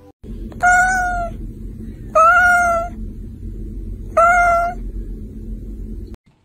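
Domestic cat meowing three times, short, evenly pitched calls about a second and a half apart, over a steady low rumble that cuts off near the end.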